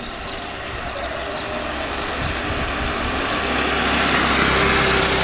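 A motorcycle approaching and passing along a road, its engine growing steadily louder toward the end.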